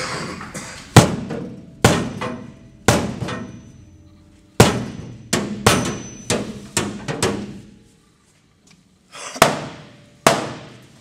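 Sharp hammer blows on the sheet-metal body of a 1957 Chevy Bel Air, knocking panels into alignment during a floor pan fit. About a dozen strikes come at an uneven pace, each ringing briefly, with a pause of about a second and a half near the end.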